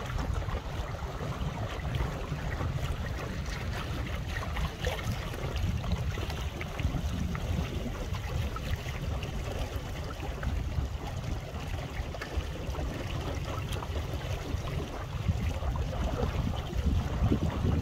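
Wind buffeting the microphone: a low rumble that swells and eases with the gusts, over small wind-driven waves lapping.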